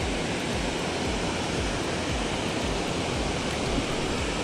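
Steady rushing noise with no distinct sounds in it, even and unbroken throughout.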